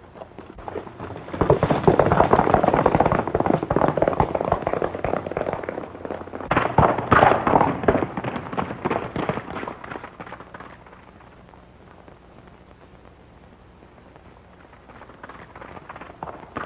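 Horses galloping: a rapid, irregular clatter of hoofbeats, loud for most of the first ten seconds, then dying away and faintly building again near the end as riders approach.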